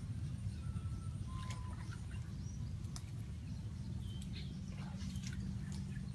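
A few short, faint bird chirps over a steady low rumble, with scattered small clicks.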